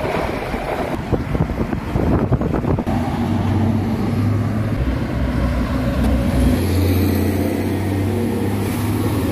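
Expressway traffic: vehicle engines and tyre noise. The noise is choppy for the first few seconds, and from about three seconds in a steady low engine hum takes over.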